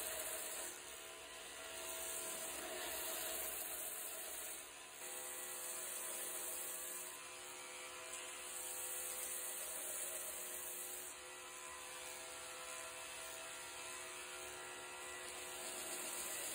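Belt grinder running with a steady motor tone while a wooden knife handle is ground against the sanding belt to shape its profile. The sanding hiss swells and drops over several passes as the handle is pressed on and eased off.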